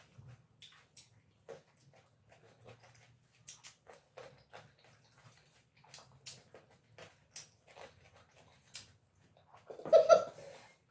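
Wet chewing and mouth smacking of grapes being eaten fast: a run of short, irregular clicks and squelches. Near the end there is one brief loud vocal sound.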